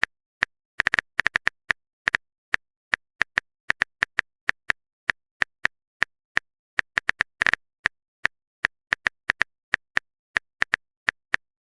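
Phone keyboard typing sound effect: irregular, quick clicks of a touchscreen typing tap, sometimes bunched in fast runs, with dead silence between them.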